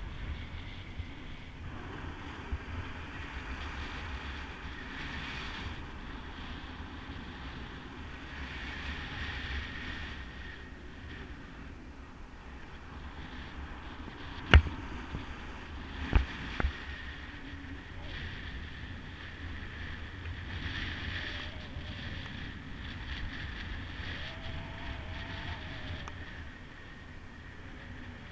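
Wind buffeting the microphone of a camera carried in paragliding flight: a steady rumbling rush with no voices. A sharp knock comes about halfway through, and two more follow shortly after.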